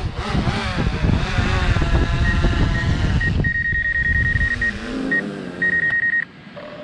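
A motor vehicle running with heavy rumbling noise. A high electronic beep repeats in quick runs from about two seconds in, and both stop near the end.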